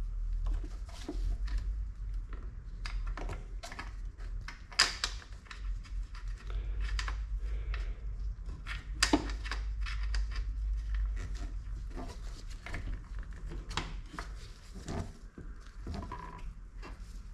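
Irregular clicks, taps and knocks of hand work on car door parts and tools, with two sharper clacks about five and nine seconds in, over a steady low hum.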